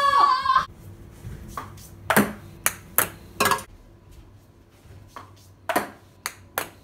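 Ping pong ball bouncing on a hard countertop: sharp, ringing clicks, a few in quick uneven succession, then after a pause several more near the end. A brief pitched sound ends just at the start.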